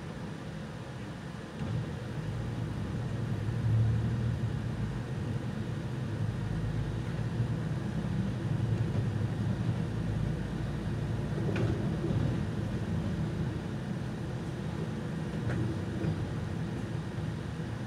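Solaris Urbino 18 articulated city bus driving, heard from inside the bus: a low, steady rumble of engine and road noise that grows louder about two seconds in. A single short click comes near the twelfth second.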